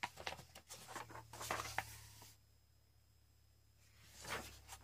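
Thin, printer-paper-weight coloring book pages rustling as a page is turned by hand: a run of soft crinkles and brushes over the first two seconds, then one more short brush of a hand on the paper near the end.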